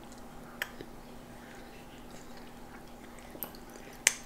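Toddlers eating juicy orange segments: faint wet chewing and mouth smacks with a few small clicks, and one sharper click near the end, over a faint steady hum.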